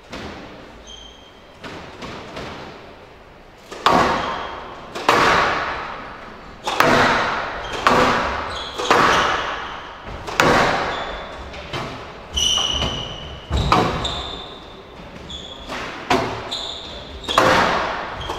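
Squash ball being hit back and forth in a rally: sharp, echoing smacks of racket and ball on the court walls about once a second, softer at first, with short high squeaks between shots.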